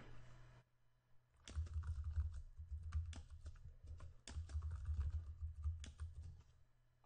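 Faint typing on a computer keyboard: two quick runs of keystrokes starting about a second and a half in, with a short pause between them, as a password is typed and then typed again to confirm it.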